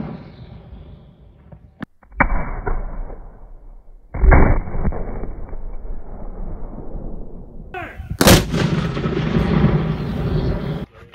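10-pounder Parrott rifled cannons firing black-powder charges: the rolling echo of one shot fades away, then further blasts come about two, four and eight seconds in, each followed by a long rumbling echo.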